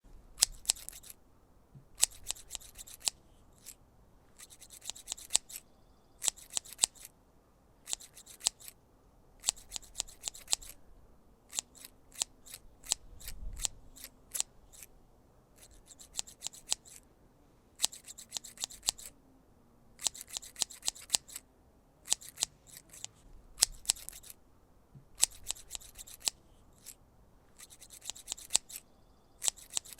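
Hand grass clippers snipping in short runs of several quick, crisp cuts, a new run every second or two.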